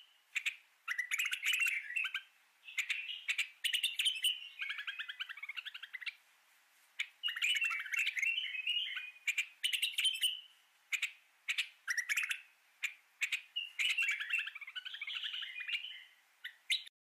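Songbirds chirping and singing rapid trills in phrases with short gaps between them, cutting off abruptly near the end.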